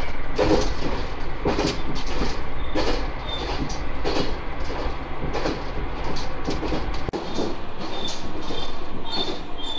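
Moka Railway diesel railcar running along the track: a steady low rumble under wheels clacking over rail joints about once a second. Short high squeaks come in near the end.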